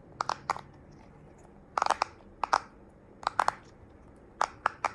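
Silicone pop-it fidget toy having its bubbles pushed through: about a dozen short pops, often two or three in quick succession.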